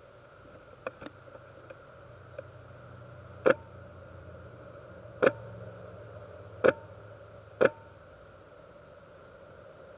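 Four sharp shots, one to two seconds apart, each with a short ring, preceded by a few faint clicks over a low steady hum.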